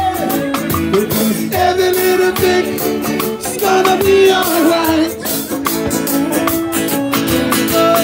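A live reggae band playing: drum kit, hand drum, guitar and shaker, with a voice singing over them.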